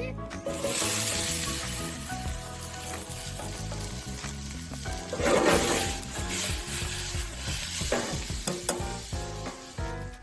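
Grilled chicken and diced potatoes sizzling in a hot pot of spiced tomato-paste curry base. The sizzle swells louder about five seconds in.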